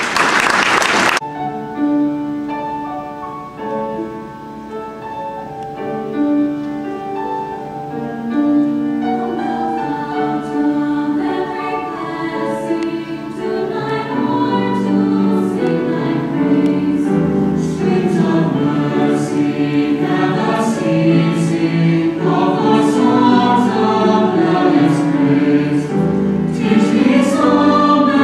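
Mixed high-school choir singing in parts, building from soft held chords to a fuller, louder sound with crisp sibilant consonants, after a brief loud burst of noise in the first second.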